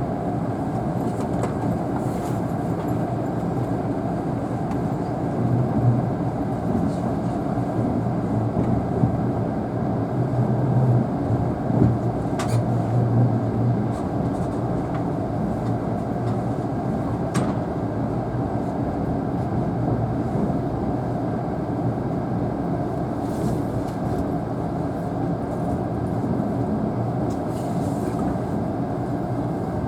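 Steady running noise of a Tobu Spacia X limited-express train, heard inside the passenger cabin: a constant rumble of wheels on rail. A low hum swells for several seconds around the middle, and there are two faint clicks.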